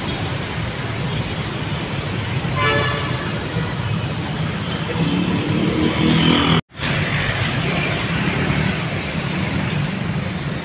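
Steady road traffic noise of vehicles passing on a city street, with a short horn toot about three seconds in. The sound drops out completely for an instant just past the middle.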